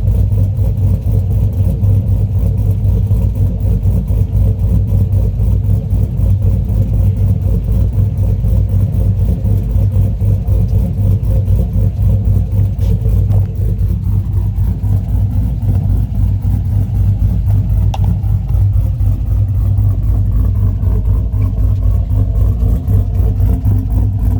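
LS V8 engine running steadily through its Flowmaster Super HP2 muffler: a loud, deep, continuous exhaust note, with a slight change in engine speed a little past halfway.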